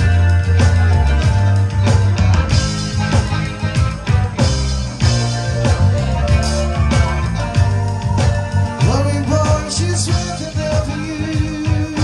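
Live rock band playing loudly through a stage PA: electric guitar over a heavy bass line and a steady drum beat, with some sliding notes near the end.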